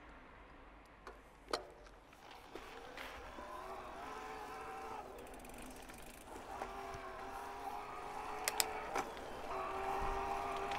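A motor hum with a few steady pitched tones, starting a few seconds in, breaking off briefly in the middle and then returning, growing slowly louder, with a few sharp clicks.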